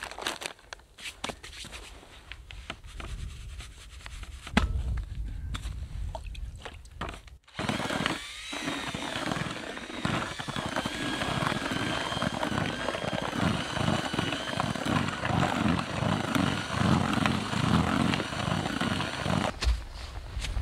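Hands mixing damp feeder groundbait in a plastic bucket: a steady, rhythmic gritty rubbing that starts abruptly about seven seconds in. Before it, quieter rummaging and clicks from a tackle bag.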